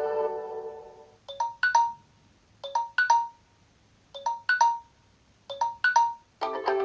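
Samsung Galaxy A6 ringtone: a short electronic two-note chime, a lower note followed by a higher ringing one, played four times about every 1.4 seconds. The tail of a plucked-string ringtone fades out at the start, and another plucked-string ringtone begins near the end.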